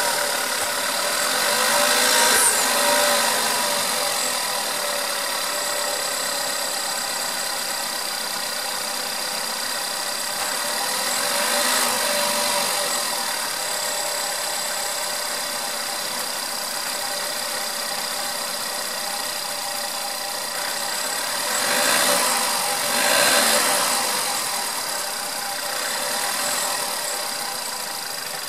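Volkswagen Golf 6 1.4 TSI four-cylinder turbo petrol engine idling, with steady whistling tones over a rattle; the owner says it always whistles and rattles like this, while the dealer claims it is normal. The sound swells a few times, briefly, about two seconds in, around twelve seconds in and again near the twenty-two to twenty-four second mark.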